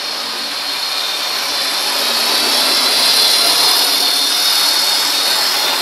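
OO gauge model train, a diesel locomotive hauling four coaches, running on the track: a steady whirring rumble of motor and wheels on rails that grows louder over the first few seconds as it comes near.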